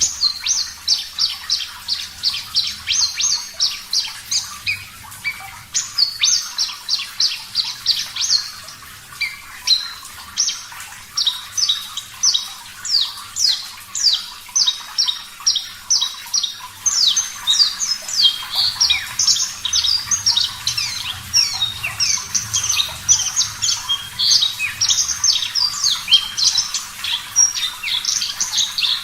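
Javan bush lark (branjangan) singing: a fast, unbroken run of short, sharp, high chirps, several a second, some sweeping up and some down.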